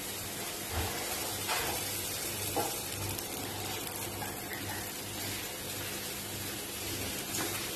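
Pancake batter sizzling in a hot greased non-stick frying pan on a gas burner as more batter is spooned in, with a few light taps of the spoon against the pan. A steady low hum runs underneath.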